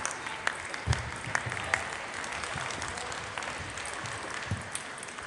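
Busy table tennis hall: irregular sharp clicks of balls hitting tables and bats from several tables at once, over a general hall murmur, with a few dull thumps.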